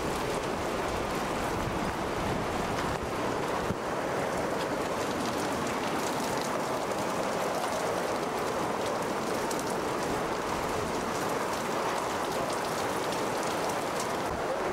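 Hurricane-force wind and heavy driving rain: a steady rushing noise with scattered raindrop ticks.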